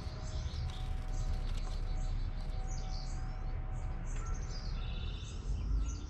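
Small songbirds chirping and warbling in short high notes, with a quick trill in the second half, over a steady low rumble.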